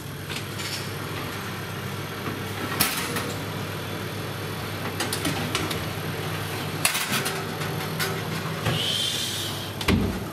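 Built-in oven door opened and a metal baking tray of cookies slid out along the oven rack, with a few sharp clicks and metal knocks over a steady low hum.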